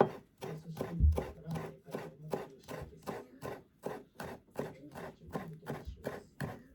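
Knife chopping food on a cutting board in a steady, even rhythm of about four strokes a second.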